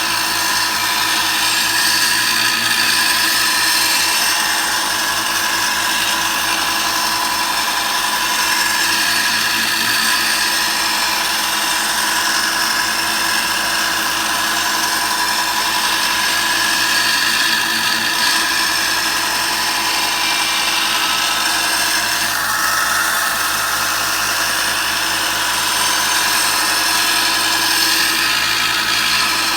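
Electric belt sander running steadily while a steel draw knife blade is ground against the abrasive belt.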